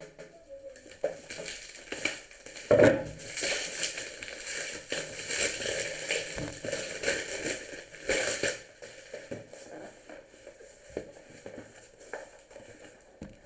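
Packaging being handled and opened: plastic crinkling and rustling, with scattered clicks and knocks, busiest from about three seconds in to the middle, then thinner.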